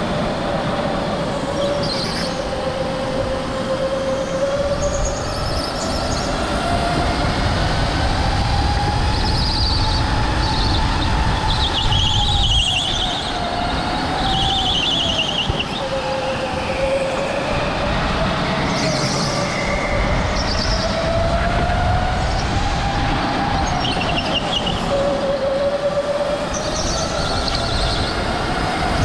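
Electric go-kart's motor whine rising and falling as the kart speeds up and slows for corners, over a low rumble, with short high tyre squeals several times as it goes through the turns.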